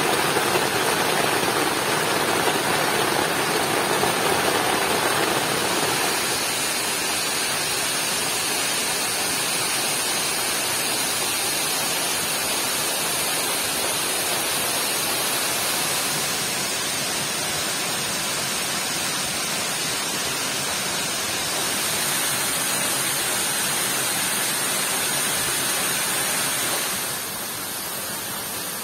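Steady rush of heavy rain mixed with a nearby waterfall. The sound is fuller for the first few seconds and drops suddenly in level near the end.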